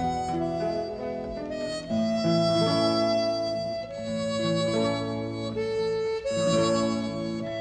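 Background music: harmonica playing held chords that change every second or so.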